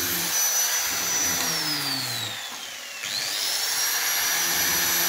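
High-pitched whine of an electric woodworking power tool's motor. About a second and a half in it winds down in pitch, then around the middle it spins back up quickly to its steady running pitch.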